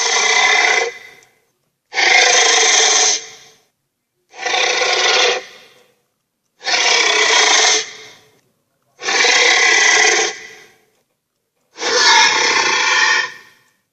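Cartoon monster sound effect played six times in a row, each burst lasting a little over a second with a short silence between.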